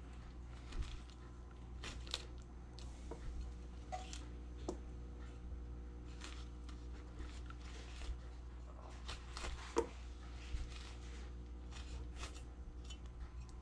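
Chinese cleaver blade cutting and scraping the eyes and leftover skin off a peeled pineapple held in the hand: irregular short cutting strokes, with a sharper click about ten seconds in, over a steady low hum.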